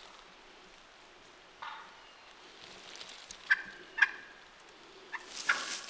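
Young male wild turkeys (jakes) gobbling at close range. There are several short calls, and the two loudest and sharpest come about three and a half and four seconds in.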